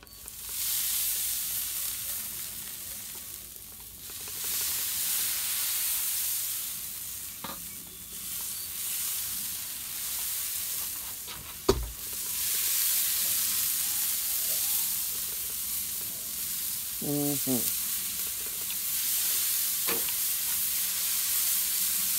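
Hand-pump garden sprayer misting a spritz over meat on a smoker: long, steady, high-pitched hissing sprays that pause briefly about 4 and 12 seconds in. A single sharp knock comes just before the second pause.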